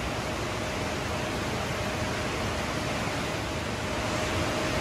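Steady rushing noise of moving air with a faint constant hum.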